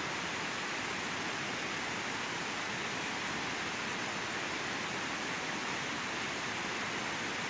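Steady rush of muddy runoff water flowing down across a hillside road, an even hiss that does not let up.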